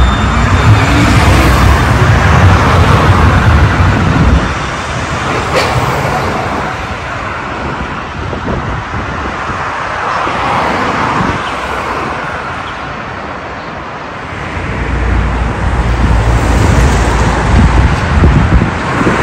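Street traffic rumbling past, loudest in the first four seconds and again from about fifteen seconds in, with a single sharp click about five and a half seconds in.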